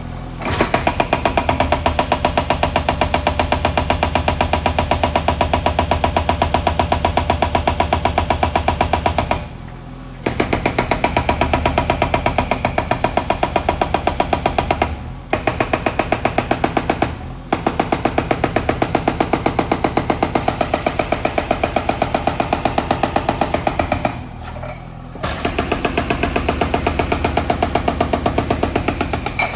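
Hydraulic breaker on a JCB backhoe hammering in long runs of rapid, even blows, stopping briefly four times.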